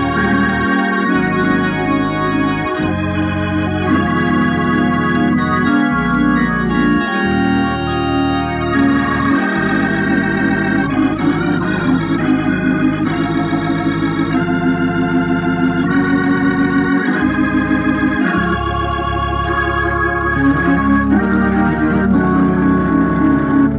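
Reconditioned Hammond A100 organ played through a Leslie speaker: sustained chords over held pedal-bass notes that change every second or two. Through much of the second half the sound has a rapid, regular pulsing.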